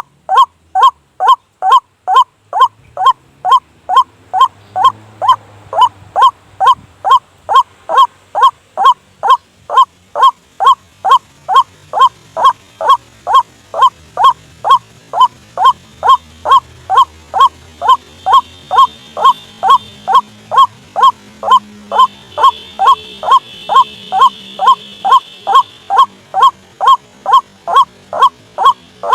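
White-breasted waterhen calling: a long, unbroken run of short, loud, evenly repeated notes, about two to three a second. This is a lure call used to draw waterhens to a trap.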